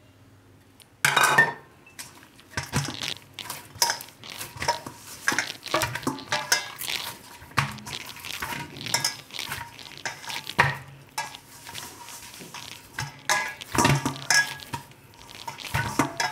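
Hands kneading oiled wheat-flour dough in a large stainless steel bowl, the bowl knocking and clattering with each push. A loud knock comes about a second in, then an irregular run of knocks two or three times a second.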